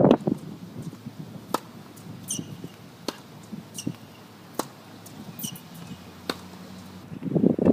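Tennis ball struck by a racket on a hard court: four sharp pocks, about one every second and a half. Two short high squeaks fall between them.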